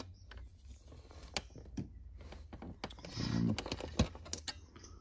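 Scattered light clicks and taps of small screws and plastic parts being handled while a Big Mouth Billy Bass singing fish is taken apart. A short low hum-like sound comes just past three seconds in, and the sharpest click about four seconds in.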